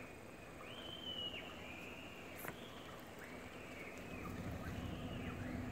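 Faint bird calls: a series of high, arching notes, each under a second long. A single click comes about two and a half seconds in.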